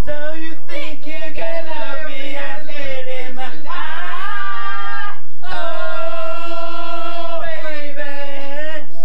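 A group of men singing a cappella in close harmony, the voices moving together and holding one long chord a little past halfway before moving on.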